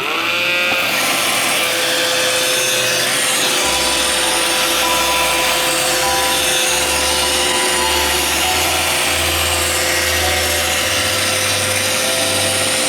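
iRobot Roomba 570 robot vacuum running: its vacuum fan and brush motors whir steadily with a constant whine, and a lower hum joins about three and a half seconds in.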